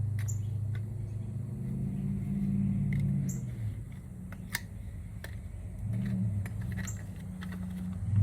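Scattered sharp metal clicks and taps of hand tools working on a scrap brass part, about half a dozen in all, over a steady low hum.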